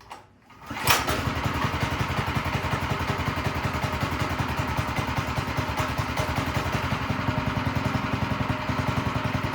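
Mini bike's Predator engine starting about a second in and then running steadily with an even, rapid firing pulse.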